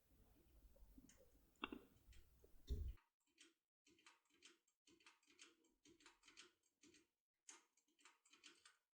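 Faint metallic ticking and clicking of a Hobbs lock pick worked in short movements inside a lock, under light tension. There are a couple of sharper clicks in the first three seconds, then a quick run of small ticks, several a second.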